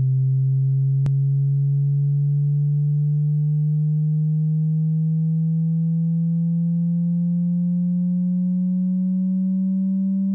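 Electronic sine-tone sweep: a steady pure tone gliding slowly upward in pitch, with fainter higher tones rising alongside it. A single sharp click comes about a second in.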